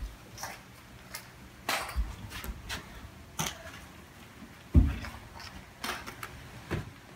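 Scattered light knocks and rustles of a child moving about on a hardwood floor with a plastic basket of plastic eggs, with one heavy low thump about five seconds in.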